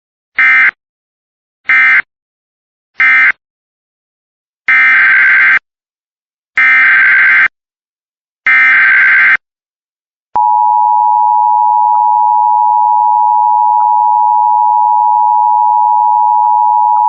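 Emergency Alert System SAME data tones. First come three short, buzzy digital bursts, the end-of-message code closing the previous alert. Then come three longer bursts of the same kind, the header of the next alert. About ten seconds in, the steady EAS two-tone attention signal starts and holds.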